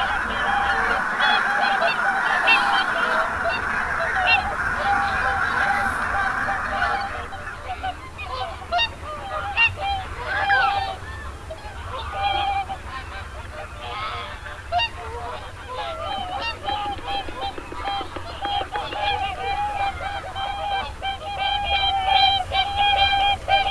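A large flock of wild geese honking, many calls overlapping in a continuous chorus.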